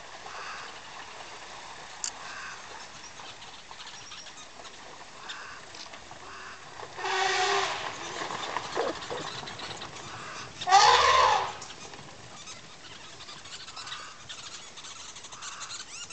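African bush elephant trumpeting twice: a call about seven seconds in and a louder one, arching in pitch, near eleven seconds, each about a second long.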